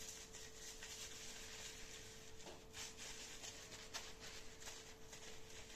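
Hands mixing wet, soapy cotton slime: soft rubbing and squishing with small clicks.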